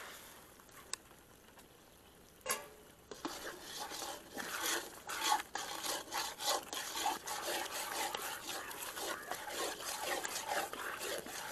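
A long-handled ladle stirring and scraping thick halwa in a large kadai. After a quieter start and a single knock about two and a half seconds in, a busy run of quick, irregular scraping strokes follows.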